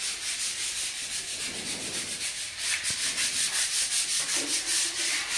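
Sandpaper rubbed by hand on a wall in quick, even back-and-forth strokes, a steady rasping scratch several strokes a second.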